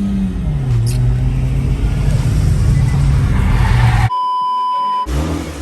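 A car engine running under way, its revs dropping about half a second in and then holding steady. About four seconds in the sound is cut out for about a second by a single steady beep, a censor bleep laid over the audio, and the engine is heard again after it.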